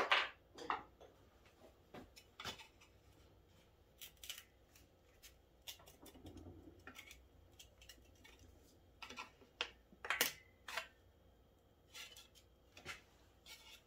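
Scattered metal clicks and clinks of hand tools on an engine: a wrench being fitted and worked on a 12 mm bolt at the engine's intake boot, with tools picked up and set down. One louder clank comes about ten seconds in.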